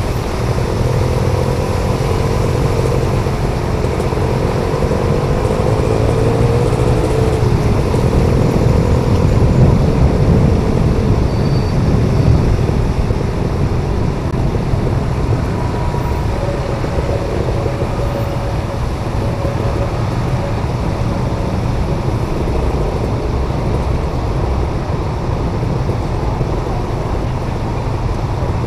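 Traffic on a rain-flooded city road: cars and motorcycle engines running close by with a steady low rumble. An engine's pitch wavers up and down in the first several seconds.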